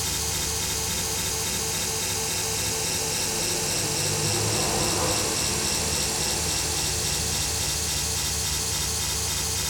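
Vectorscope (oscilloscope) audio: a stereo signal made on an Amiga from an animated bitmap clock picture, heard as a steady harsh electronic buzz thick with overtones and an even, repeating pulse. It swells slightly about halfway through.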